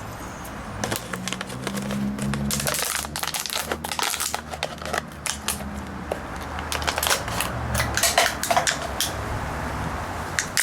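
Thin plastic water bottle crackling and crinkling as its bottom is cut off, with a run of sharp clicks and snaps as the plastic is squeezed and cut.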